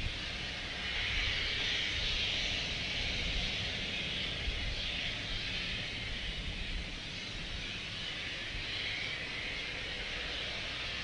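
Steady hiss of escaping steam from a South African Railways class 19D steam locomotive, swelling and easing, over a low rumble.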